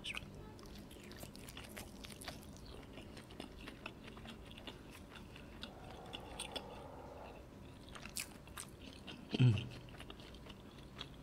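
Close-miked mouth sounds of a man biting and chewing a steamed dumpling in spicy sauce and melted mozzarella: soft wet smacks and small clicks. About nine seconds in comes one brief, louder low vocal sound, falling in pitch.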